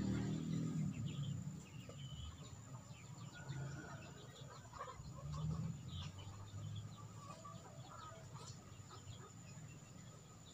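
Native chickens clucking softly, with scattered short high calls, over a low rumble that is loudest in the first second or so.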